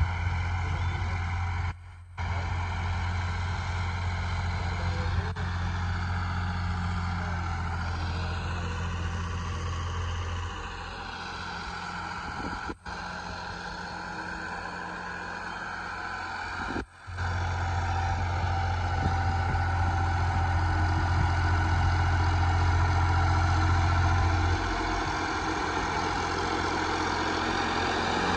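Farmtrac 60 tractor's diesel engine running steadily while pulling a disc harrow through ploughed soil, its note swelling and easing about a third of the way through. The sound breaks off briefly three times.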